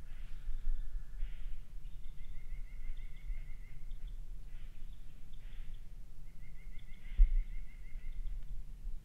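A small songbird trilling, a rapid, even run of high notes lasting about a second and a half and repeated twice, with soft rustles in dry leaf litter between trills and a low thump near the end.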